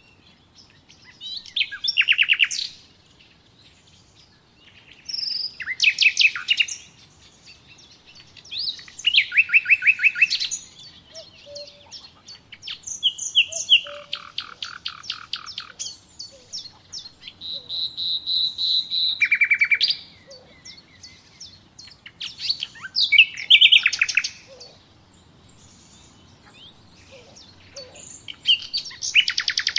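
Songbird singing: short phrases of rapid high chirps and trills every few seconds, with brief pauses between them.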